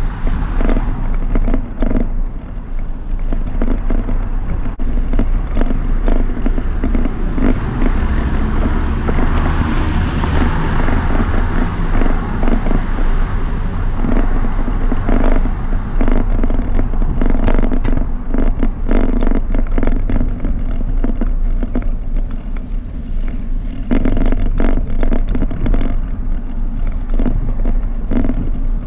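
Bicycle ride heard from a camera mounted on the bike: a steady rumbling rush on the microphone, with frequent rattling knocks as the bike rolls over sidewalk paving. The rush swells about eight seconds in and eases again a few seconds later.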